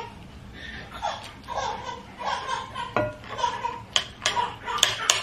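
A baby vocalizing in short, repeated pitched calls from about a second in, with a few sharp clinks of a fork on a plate in the second half.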